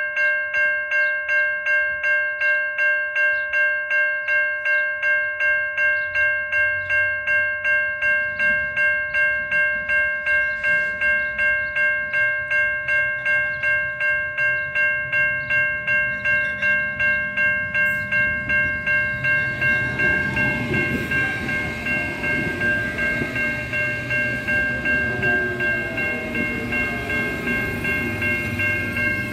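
Level crossing warning bell ringing rapidly, about three strikes a second, while a lowered-barrier alarm sounds for an approaching train. From about 20 seconds in, an Auckland AM class electric multiple unit passes close by, adding a rumble of wheels on rail and a whine that falls in pitch.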